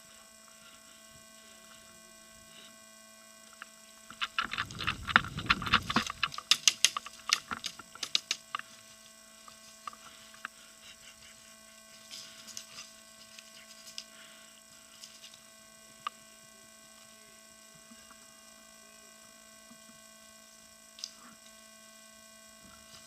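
Steady electrical hum in the recording, with a few seconds of low rustling and quick sharp clicks about four to eight seconds in.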